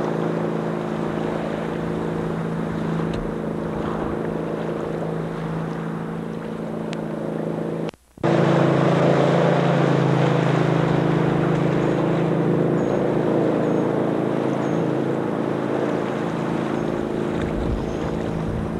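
Motorboat engine running steadily, with wind noise over the microphone. The sound drops out for a moment about eight seconds in.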